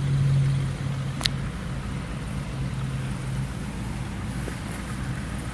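Steady drone of highway traffic with a low hum underneath, and a single sharp click about a second in.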